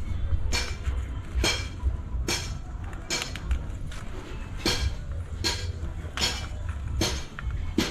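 Hammer striking metal in a steady rhythm: about ten sharp, ringing blows, roughly 0.8 seconds apart.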